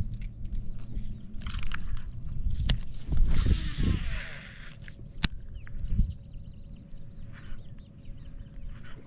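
A cast with a baitcasting rod and reel: the line hisses off the spool for about a second, then comes one sharp click. After that, birds chirp over and over above a faint steady hum.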